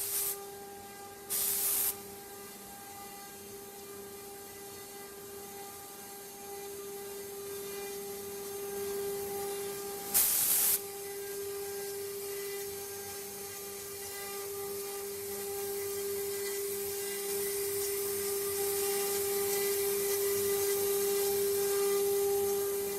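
CNC wood router's spindle running with a steady high whine, likely while carving wood. There are two short bursts of hiss, one about a second in and one about ten seconds in. The whine grows gradually louder over the second half.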